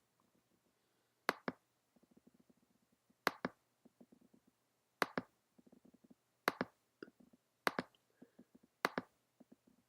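Computer pointer button clicks, each a quick press-and-release pair, six pairs about every one and a half seconds, with faint soft ticking between them.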